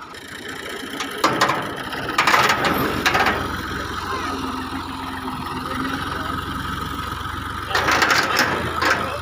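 Ghazi tractor's diesel engine idling with a steady low drone, broken by three louder bursts of rattling and clatter: about a second in, between two and three seconds, and near the end.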